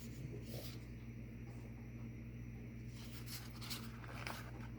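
Faint rustling and a few soft clicks of tarot cards being handled, over a steady low hum.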